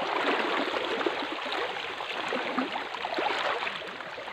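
Irrigation water flowing steadily along an old sheet-metal aqueduct channel, an even running-water sound.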